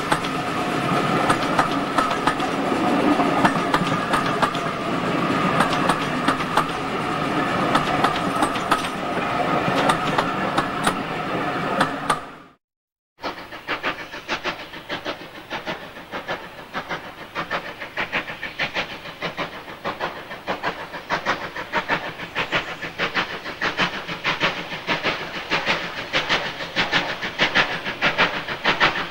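A steam-hauled train of wooden-bodied coaches rolling past close by: a continuous rumble of wheels and clatter over rail joints, broken off by a sudden cut about twelve seconds in. Then a steam locomotive approaching under heavy steam, its rapid, evenly spaced exhaust beats growing louder as it nears.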